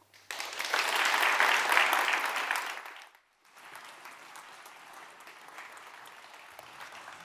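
Audience applauding. The clapping is loud for about three seconds, drops out briefly, then carries on more quietly.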